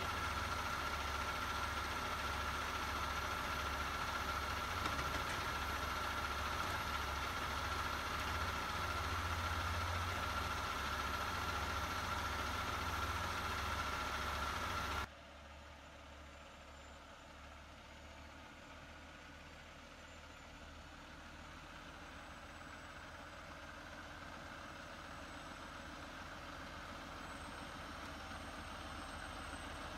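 Heavy diesel engines idling steadily with a steady high whine, cutting off abruptly about halfway. Then a loaded Peterbilt 389 log truck approaches on a gravel road, its engine growing slowly louder.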